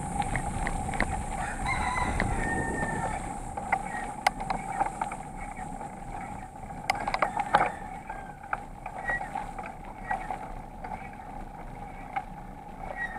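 Bicycle riding noise through an action camera's microphone: wind and road noise, strongest in the first few seconds, with scattered rattling clicks. A rooster crows faintly about two seconds in.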